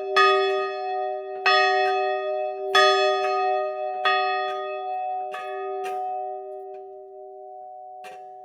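28-inch cast iron church bell rung in regular strokes about every 1.3 seconds, each stroke ringing on in long steady tones. The strokes weaken after about five seconds, with one last faint stroke near the end while the ring dies away.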